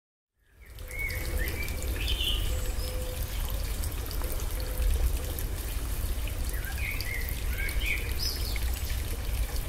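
Outdoor ambience of running water with a low rumble, starting about half a second in. Short chirping bird calls come in two clusters, near the start and again about seven seconds in.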